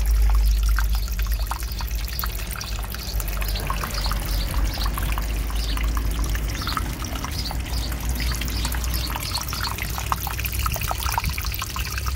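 Water from a small submersible pump's spout splashing and trickling steadily into a turtle tank, with a low rumble underneath.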